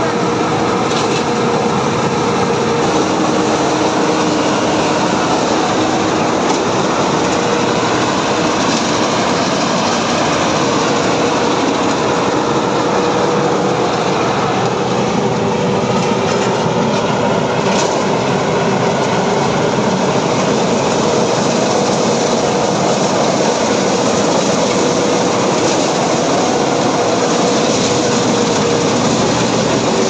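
Tracked rice combine harvester running steadily while cutting and threshing paddy: a loud, unbroken machine drone with a constant hum.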